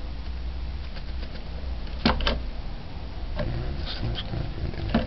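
Salt jar being tapped and shaken to pour salt into a cupped hand: two sharp clicks close together about two seconds in and another near the end, over a steady low hum.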